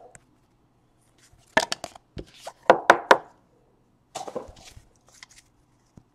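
Trading cards and pack wrappers being handled on a table: a cluster of sharp clicks and taps, then a short rustle, and one last click near the end.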